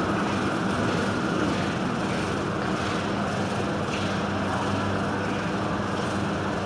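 Bus diesel engines running in a bus interchange: a steady engine drone with a low hum, as a single-deck bus pulls out and turns.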